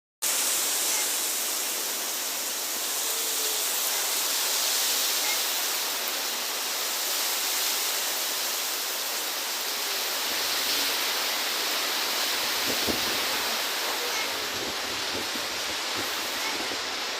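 Storm of strong wind and rain, a steady loud rushing noise, with a few faint knocks in the last few seconds.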